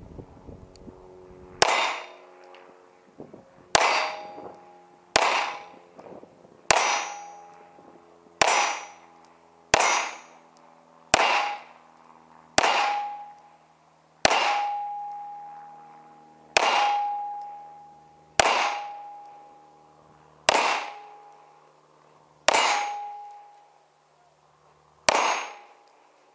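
Pistol shots fired one at a time, about fourteen of them spaced a second and a half to two seconds apart. Each is a sharp crack followed by a ringing tone that dies away over a second or so.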